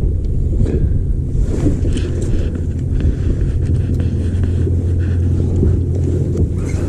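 Wind buffeting the microphone on an open boat: a loud, steady low rumble, with a few light clicks and knocks from handling.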